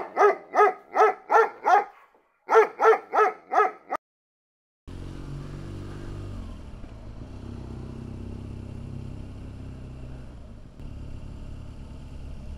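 A dog barking in two rapid runs, about six barks and then five more. After a short gap, a motorcycle engine runs steadily at low revs under road and wind noise.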